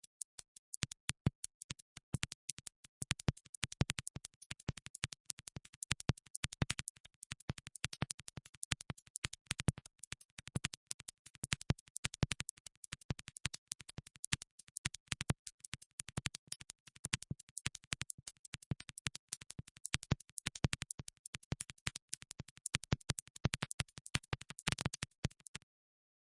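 A dense run of sharp clicks, irregular in spacing, many per second, stopping abruptly near the end.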